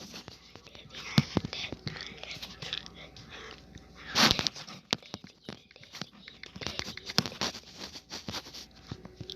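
Handling noise: a run of irregular clicks, knocks and rustling as objects are moved about, with one louder knock about four seconds in.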